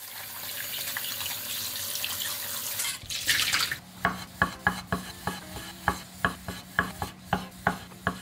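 Tap water spraying onto cherry tomatoes in a stainless mesh strainer at a sink, stopping about three seconds in. From about four seconds in, a kitchen knife halves cherry tomatoes on a wooden cutting board: sharp knocks of the blade on the board, about two or three a second.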